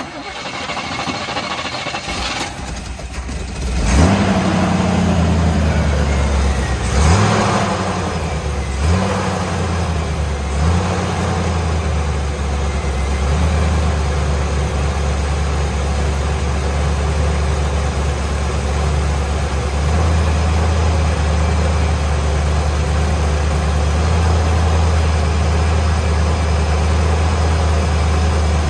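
A 1957 Chevrolet's V8 engine starts: a few seconds of cranking, then it fires about four seconds in. It is blipped four times with short revs and settles into a steady, even idle.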